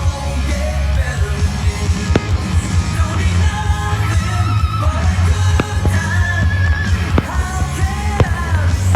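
Loud rock music with singing over a heavy, steady bass, with sharp hits scattered through it.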